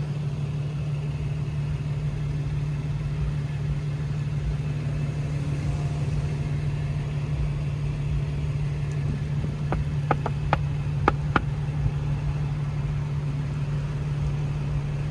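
Car engine idling with a steady low hum, and a few sharp clicks a little past the middle.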